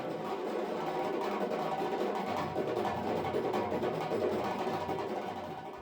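Instrumental music interlude that swells in and fades out near the end.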